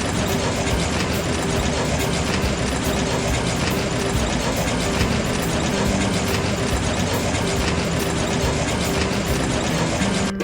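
A heavy engine running steadily under a dense mechanical rumble and clatter, with a steady hum.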